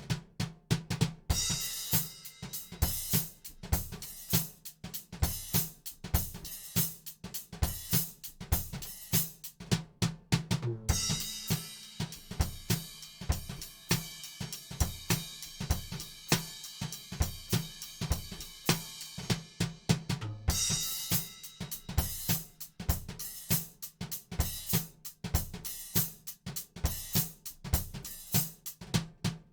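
Drum kit played in a steady groove of kick drum, snare and hi-hat. About ten seconds in and again about twenty seconds in, a short break gives way to a denser, sustained cymbal wash over the beat.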